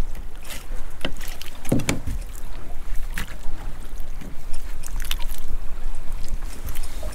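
Steady low rumble of wind and water around a small boat at anchor, with scattered short knocks and clicks as octopus bait is cut and handled on board.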